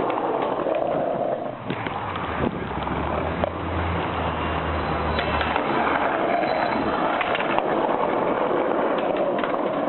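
Skateboard wheels rolling steadily over street pavement, with a few sharp clacks from the board. A low hum rises under it for a few seconds in the middle.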